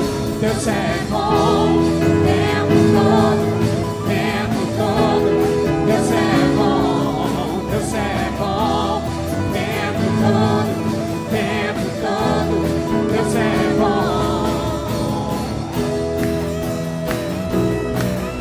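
Church worship band playing a gospel song, with singing over sustained chords.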